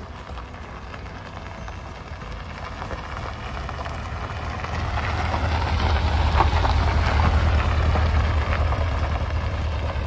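Rushing water of a waterfall: a steady, even rush with a deep rumble underneath, growing louder from about a third of the way in.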